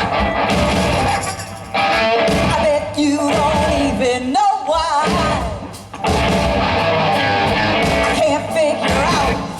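Rock band playing with electric guitar and a singer. The low end drops out briefly near the middle, then the full band comes back in.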